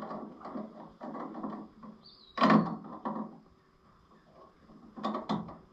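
Wire pliers working a nut on a tractor: irregular metal clicks, knocks and scrapes as the pliers grip and turn it. There is a louder clank about two and a half seconds in and another pair around five seconds.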